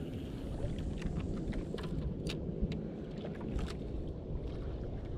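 Steady low rumble of wind and water around a small outrigger fishing boat at sea, with a few short sharp clicks and taps scattered through it.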